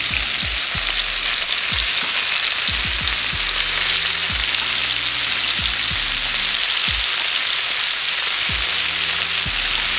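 Chicken pieces and freshly added sliced onion sizzling in oil on a saj, a wide steel frying pan over a wood fire: a steady frying hiss.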